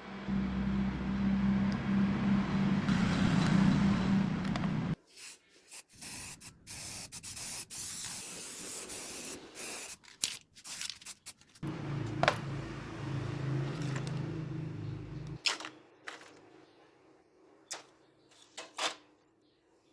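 A small electric motor hums steadily for about five seconds. Then comes a stretch of hissing, scraping strokes that start and stop. The motor runs again for about three seconds, followed by a few scattered clicks and taps.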